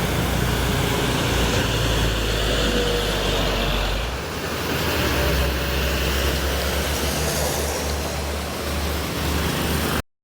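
Truck engines and road traffic noise, with a steady low engine drone; the sound cuts off abruptly near the end.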